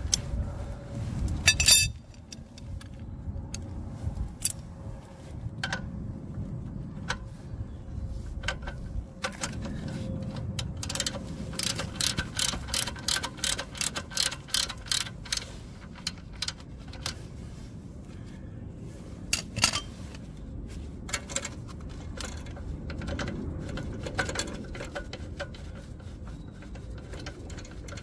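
Hand socket ratchet clicking as it turns a nut on a Harley-Davidson Sportster's swing arm, in runs of quick, evenly spaced clicks mixed with scattered knocks of metal tools. A low rumble is heard in the first two seconds.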